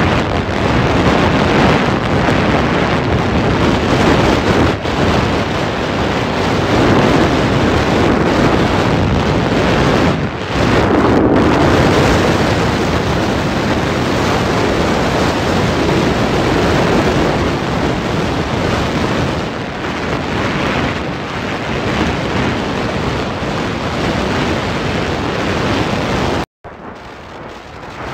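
Heavy wind rushing over the microphone of a scooter riding at speed, with the scooter and road noise buried under it. The sound cuts out abruptly near the end and comes back quieter.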